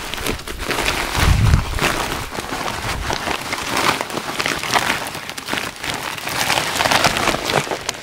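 Dry, crumbly organic fertilizer pouring from a woven plastic sack into a bamboo basket: a dense crackle of many small grains landing, with the sack rustling and a low thump about a second in.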